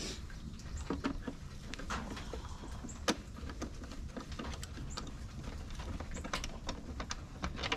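Small clicks and scrapes of a screwdriver and hard plastic as the bottom battery cover of a Gallagher S40 solar fence energizer is unscrewed and pulled off, with one sharper click about three seconds in.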